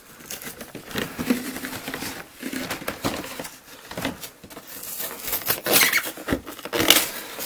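Rustling, crinkling and light knocks of a cardboard trading-card collector box being handled and unpacked, getting busier and louder about five seconds in.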